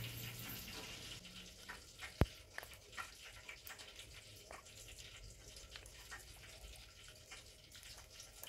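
Vinegar trickling from a plastic bottle into a metal teaspoon and dripping into a glass bowl, faint, with a few small clicks and one sharp click about two seconds in.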